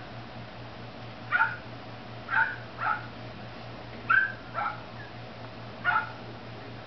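Puppy giving short, high yips, about six of them, some in quick pairs.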